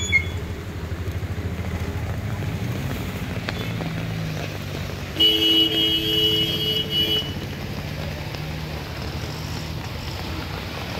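A motor vehicle's engine running at low revs as traffic drives through a flooded street, with a vehicle horn honking for about two seconds near the middle.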